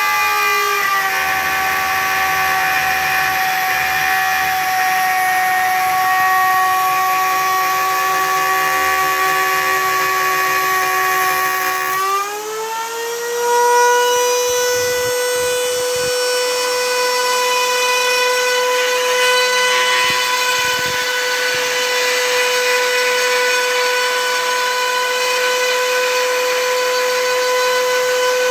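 Router spindle motor on a homemade CNC machine whining steadily as its bit mills the top of a walnut log, with the hiss of the cut under it. The pitch sits lower for the first part while the bit is under load. About twelve seconds in it slides up and holds higher for the rest, the motor speeding up as the load eases.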